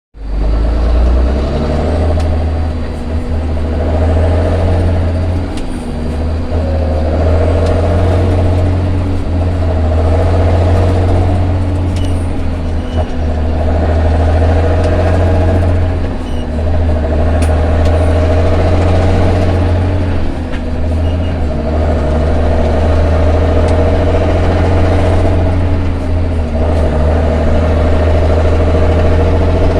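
Volvo EDC truck's electronic diesel engine running loudly under load while being driven, its pitch climbing and dropping back every few seconds as it is taken through the gears.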